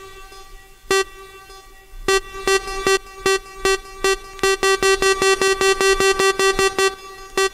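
Dance-music build-up from a DJ set: a short, horn-like stab on one note repeated, about a second apart at first, then quickening to about four a second before stopping near the end. No beat underneath.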